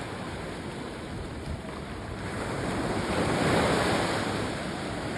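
Small sea waves breaking and washing up a sandy beach, the rush of surf swelling to a peak about halfway through and then easing off, with wind buffeting the microphone.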